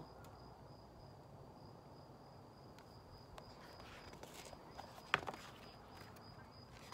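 A cricket trilling steadily in a high, slightly pulsing tone, faint. Paper rustles now and then as book pages are handled, and there is one sharp knock a little after five seconds in.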